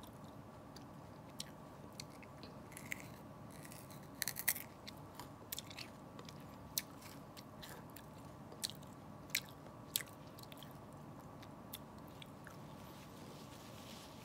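A person biting and chewing a small piece of green vegetable: sharp clicks at irregular moments, a quick cluster about four seconds in, then single ones every second or so, over a faint steady hum.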